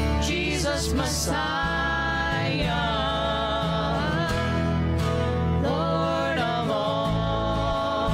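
Contemporary worship band music: a voice singing long, wavering notes over instruments with steady low bass notes.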